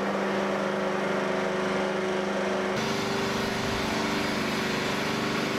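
The missile transport-loading unit's machinery runs with a steady mechanical hum as it raises the missile upright. The hum's pitch steps up slightly about halfway through.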